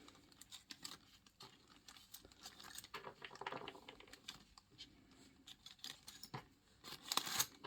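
Faint clicking and light rattling of small wargaming miniatures and their bases being handled, with a few sharper clicks near the end.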